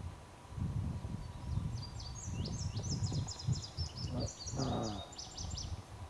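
A songbird singing a fast, jumbled run of short high notes that lasts about four seconds, with wind rumbling on the microphone underneath.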